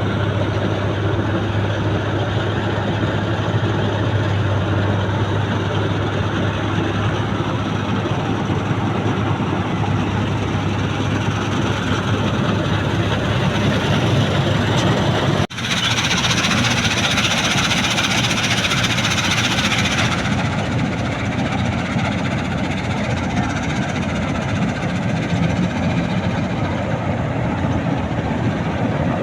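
New Holland 8070 combine harvester running steadily, a constant engine and machinery drone with a low hum. About halfway the sound briefly cuts out, and then a hiss is louder for a few seconds before the steady running carries on.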